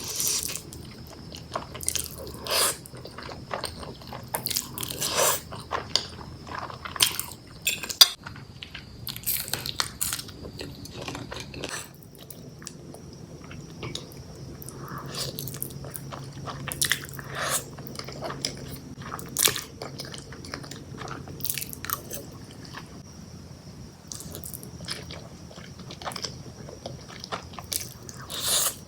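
A person eating close to the microphone: irregular bites and chewing of food.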